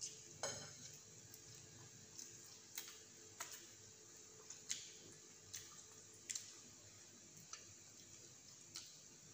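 Faint, irregular wet clicks and smacks of a mouth chewing a cheeseburger, about one a second.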